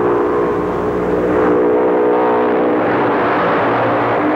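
Racing motorcycle engines running at speed, a steady drone with a louder rush of engine noise in the middle.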